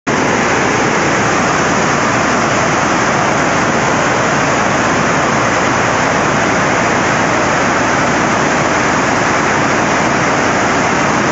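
Muddy floodwater rushing in a torrent down a street: a loud, steady rush of water, the sound of a flash flood.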